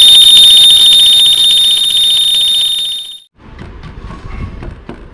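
A loud, shrill electronic alarm-like tone with a fast flutter, edited in as a sound effect, fading slightly and cutting off about three seconds in. Faint clicks and knocks follow.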